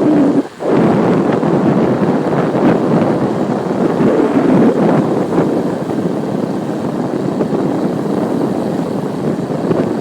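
Steady, loud wind noise buffeting the microphone of a cyclist riding downhill, after a brief dip about half a second in.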